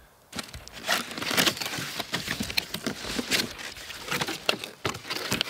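Cardboard box and styrofoam packing being handled and opened: a busy run of rustling, scraping and small crackles, starting just after the beginning.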